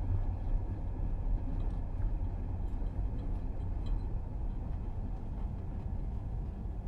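Interior of a moving commuter train: a steady low rumble from the running gear, with faint scattered clicks and rattles, easing slightly toward the end.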